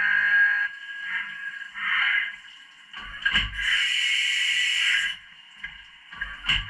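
Haas OM-2 CNC mill cutting with its spindle whining, the whine breaking off within the first two seconds, then going through an automatic tool change: a clunk about three seconds in, a hiss lasting about a second and a half, and another sharp clunk near the end.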